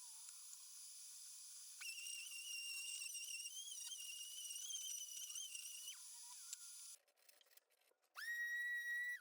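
A whistled tune: long, slightly wavering high notes separated by short breaks, with a lower held note near the end.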